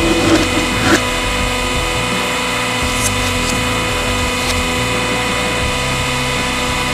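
A 100-ton press running with a steady mechanical hum, a sharp crack about a second in and a few faint ticks later.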